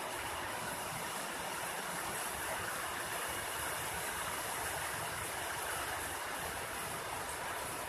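Heavy rain falling as a steady, even hiss.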